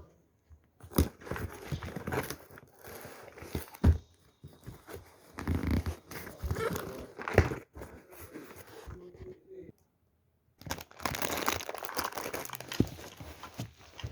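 Packaging crinkling and tearing as a pencil box is unboxed, with irregular clicks and knocks from handling. There is a short pause about two-thirds of the way through, then a longer stretch of rustling.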